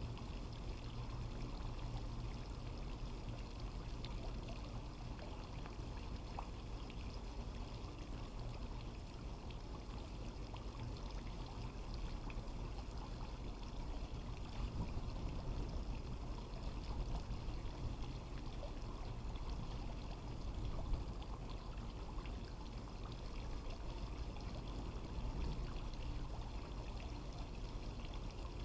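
Water pouring and running steadily, with a constant low hum underneath.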